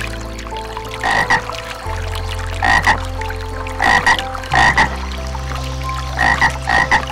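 An animal giving short, sharp calls, mostly in quick pairs, about five times, over steady background music with held chords that change twice.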